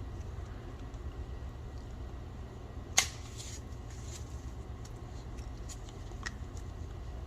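Plastic Hot Wheels track pieces being handled and fitted together on their connector pegs: one sharp plastic click about three seconds in, then a few lighter clicks, over a steady low hum.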